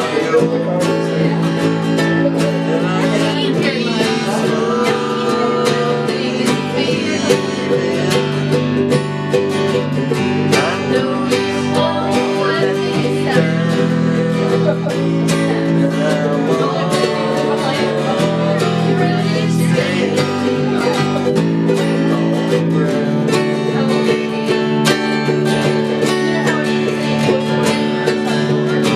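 Acoustic string band playing a bluegrass-style tune: quickly picked guitar and other plucked strings over chords that change every couple of seconds.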